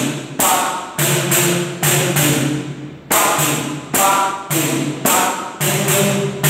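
Leather-headed pandeiro played in the samba partido alto pattern: dry slaps in the centre of the head and low thumb strokes, the jingles ringing after each stroke, in a syncopated rhythm of about one to two strokes a second.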